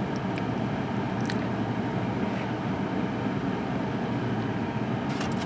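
Steady rumble of a car's cabin, engine and road noise running on without a break, with a few faint clicks.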